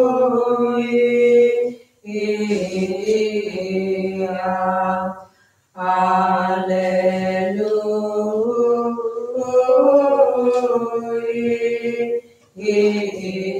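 Byzantine liturgical chant: a voice sings long, drawn-out melodic phrases. The singing breaks off briefly for breath about 2 seconds in, again about 5½ seconds in, and once more near the end.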